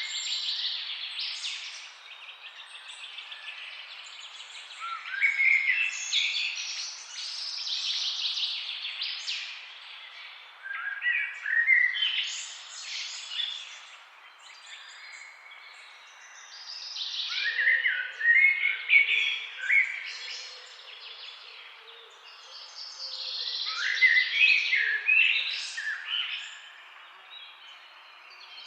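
Forest songbirds singing in bouts of quick, bright phrases that come every few seconds, over a steady rush of flowing river water.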